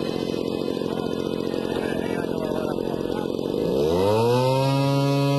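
Small model-airplane engine running at a steady buzz, then throttled up about three and a half seconds in, its pitch climbing to a high, steady whine. This is a run-up with the biplane held on the ground.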